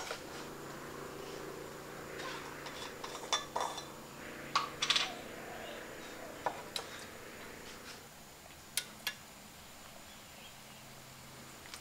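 A pot of tom yum soup boiling hard on the stove, with scattered sharp clinks and clicks of kitchenware over a faint steady low hum. The clicks bunch up between about two and five seconds in.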